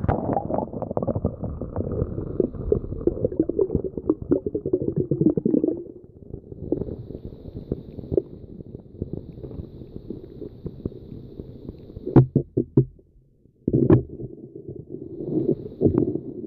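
Muffled underwater rumbling and gurgling from a submerged camera, water moving against its housing, loudest in the first six seconds, with a short run of clicks about twelve seconds in.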